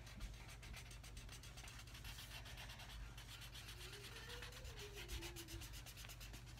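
Felt-tip markers scribbling on paper, faint rapid back-and-forth coloring strokes.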